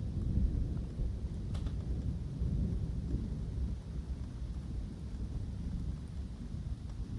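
Thunder rumbling low and rolling in a woodland summer thunderstorm, swelling and fading unevenly, over a faint hiss of rain.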